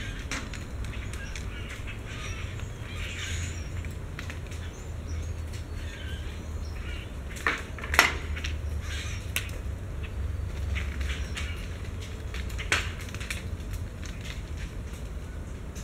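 Acorns dropping from an oak tree and landing with sharp ticks and knocks, a few at a time, the loudest about halfway through. Birds chirp faintly in the tree, over a steady low background rumble.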